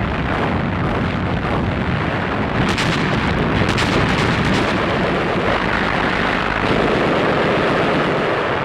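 Artillery bombardment: a dense, continuous din of gunfire and explosions, with a cluster of sharper cracks about three to four seconds in.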